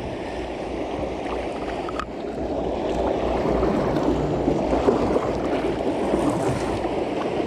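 Rushing, gurgling water pouring through a river sluice, getting louder about two seconds in.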